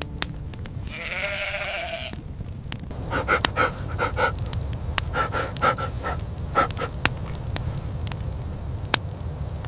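Sheep and goats bleating: one long wavering bleat about a second in, then a run of short bleats, over a steady low rumble.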